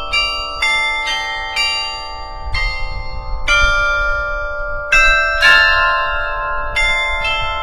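Riga City Hall's tower bells playing a slow tune, single notes struck about every half second to second and a half, each ringing on beneath the next.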